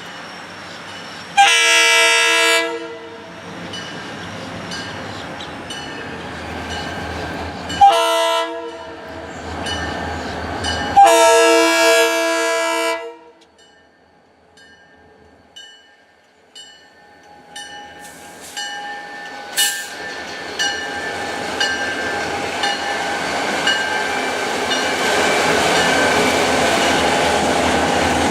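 Diesel freight locomotive's air horn sounding three blasts (long, short, long) for a grade crossing. Faint regular dings follow, and then the train's wheels and cars grow steadily louder as it approaches and rolls past.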